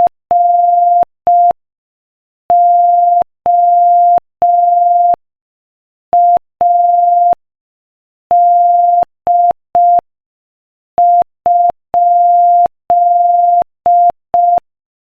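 Morse code practice tone: a single steady beep of about 700 Hz keyed on and off at 5 words per minute, in short dots and long dashes. The groups read dot-dash-dot, dash-dash-dash, dot-dash, dash-dot-dot, then dot-dot-dash-dash-dot-dot: the letters R, O, A, D and a question mark.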